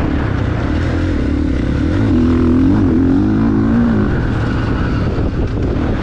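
GasGas MC 450F four-stroke single-cylinder motocross engine running under throttle while riding, the revs rising and falling about halfway through, over a steady low rumble.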